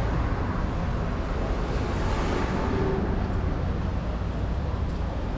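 City street traffic: a steady low rumble of engines and tyres, with a vehicle passing close about two seconds in.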